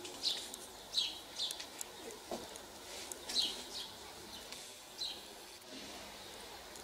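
Monkeys calling with short, high chirps that drop in pitch, coming at irregular intervals, sometimes two or three within a second.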